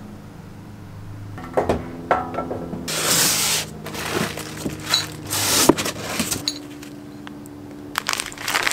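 Handling of a cardboard box and a plastic parts bag: irregular rustling and crinkling with scattered clicks and knocks. The loudest rustle comes about three seconds in.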